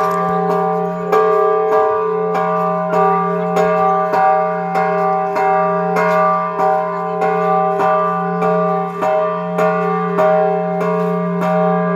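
A big bell being struck over and over, about twice a second. Its deep ring carries on without a break between strokes.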